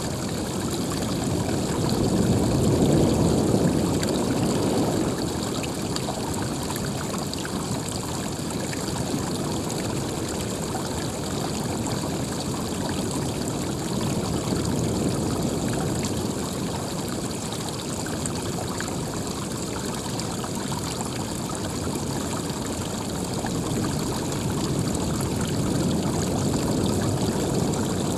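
Running water: a steady, continuous rush that swells a little louder about two to five seconds in and again near the end.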